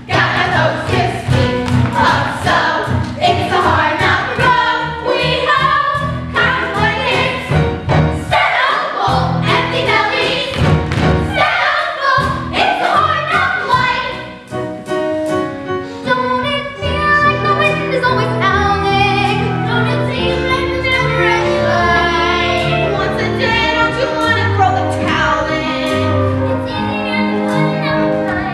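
A group of voices sings a stage-musical number with orchestral accompaniment. The accompaniment grows more prominent about halfway through.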